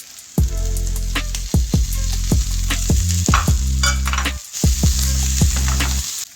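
Food sizzling in a frying pan, a steady hiss, under background music with a regular beat and a heavy bass line.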